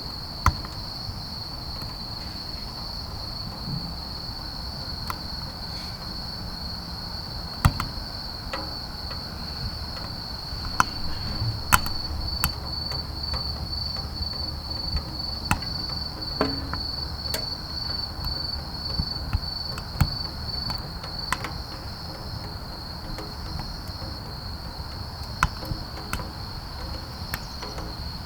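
Wood crackling and popping with irregular sharp snaps as it burns in a small camping wood stove, over a steady high chirring of crickets.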